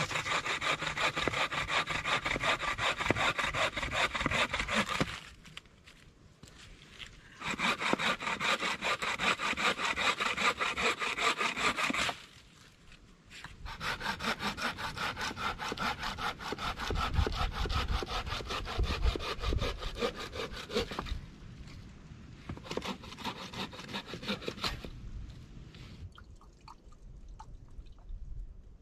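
Wooden-frame bucksaw cutting through a fallen branch in quick back-and-forth strokes. It runs in four bouts, with short pauses between them; the third bout is the longest.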